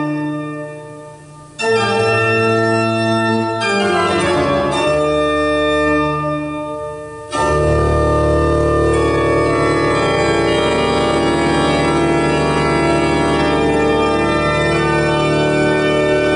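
Organ music: loud held chords, broken off about a second and a half in, then a fast run of notes, then one long full chord held from about seven seconds in.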